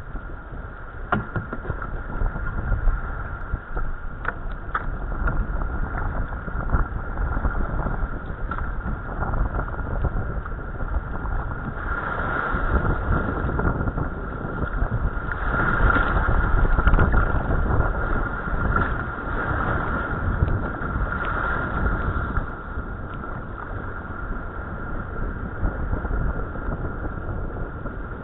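Water rushing and splashing against a sea kayak's hull in a choppy tidal race, with wind buffeting the microphone and a few sharp splashes or knocks in the first several seconds. The churning gets louder in the middle as the kayak crosses breaking whitewater.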